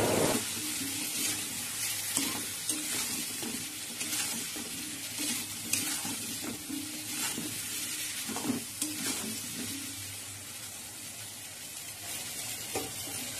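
Potato and taro pieces sizzling as they fry in oil with cumin seeds in a wok. A metal spatula scrapes and knocks against the pan at irregular moments as the pieces are stirred.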